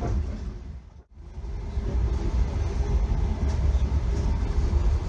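Steady low rumble of a moving passenger train heard from inside the carriage. It fades out briefly about a second in and comes straight back.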